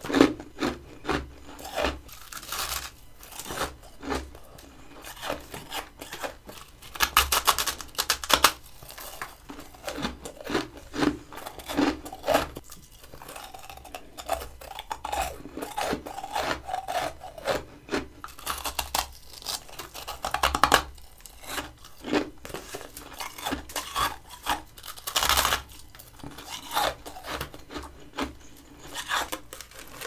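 Close-up biting and chewing of crunchy, flaky humidifier freezer frost: irregular crunches several times a second, with louder clusters of bites scattered through.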